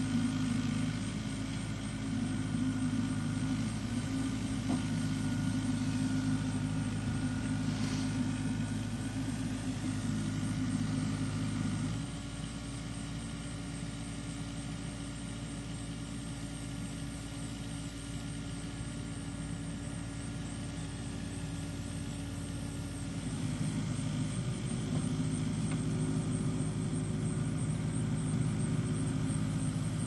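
A steady low engine drone made of several even hum tones. It drops in level about twelve seconds in and grows louder again in the last third.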